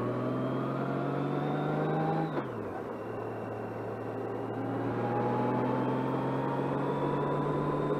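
Touring motorcycle engine running at road speed over wind and road noise. Its pitch climbs slowly, drops once about two and a half seconds in, then climbs slowly again.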